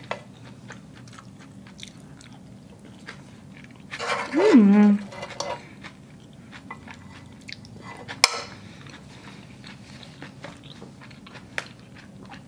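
Close-up chewing of a mouthful of spaghetti, with small wet mouth clicks throughout. About four seconds in comes a loud hummed 'mmm' of enjoyment that swoops up in pitch and settles low. A single sharp click comes a little after eight seconds.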